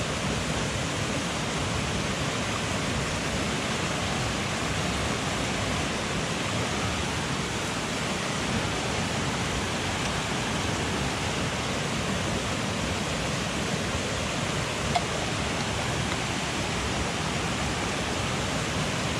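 Steady rushing of a mountain headwater stream, with one sharp click about three-quarters of the way through.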